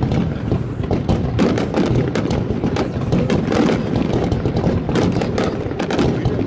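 Fireworks finale barrage: shells bursting in rapid, overlapping succession. Sharp bangs and crackles ride on a continuous low rumble with no pause.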